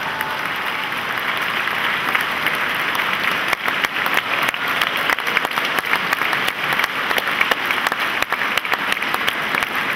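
Large audience applauding, the clapping swelling over the first few seconds and then holding steady.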